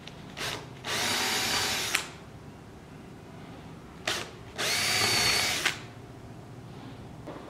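Cordless drill boring holes into a solid oak tabletop. It makes two runs of about a second each, and each run follows a brief blip of the motor.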